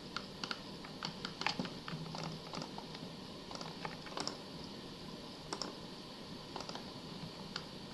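Faint, irregular clicks of a computer mouse and keyboard: mouse buttons clicking, the scroll wheel turning and the Shift key being pressed.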